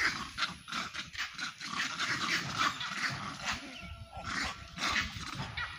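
Monkeys giving a rapid, irregular string of short calls, several a second, as they squabble in a troop.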